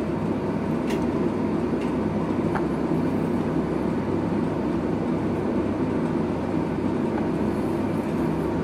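Steady low machine rumble with a faint hum. A few faint clicks as a banana is bitten with the teeth.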